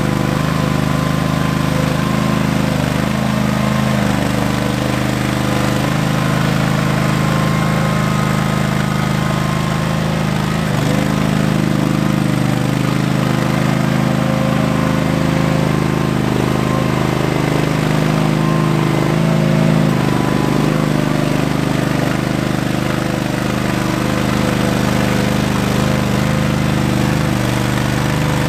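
Ingersoll 7020L garden tractor's engine running steadily, with small shifts in pitch as the tractor drives and works its front loader.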